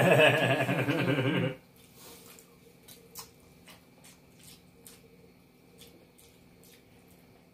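A man's hearty laughter, a run of quick pulsing ha-ha sounds that stops about a second and a half in. After that it is quiet apart from faint clicks of eating: a fork on a plate and mouth sounds.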